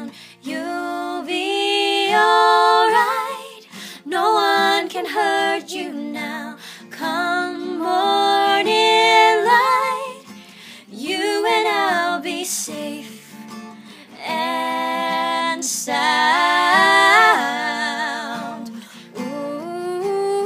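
Two women singing a slow melody in phrases with held, wavering notes, accompanied by a plucked acoustic guitar.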